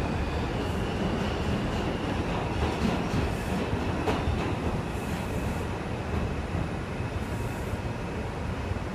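Ride noise inside an R142 subway car running on the track: a steady rumble of wheels and motors, with a faint high-pitched whine and a single click about four seconds in.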